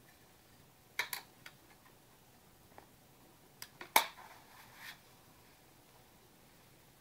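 Sharp clicks and light clattering of small hard objects being handled, in two short clusters about three seconds apart; the loudest knock comes about four seconds in.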